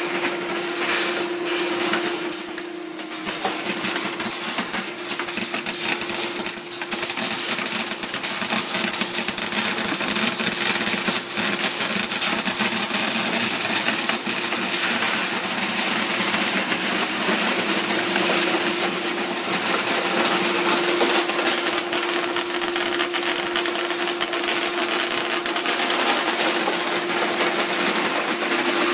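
Fluorite stones rattling and clattering continuously as they pour through an optical color sorter machine, over a steady machine hum.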